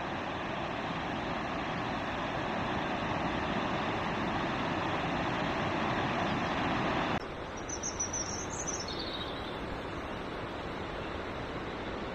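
Steady rushing noise that cuts off abruptly about seven seconds in, giving way to a quieter outdoor background with a few short high bird chirps.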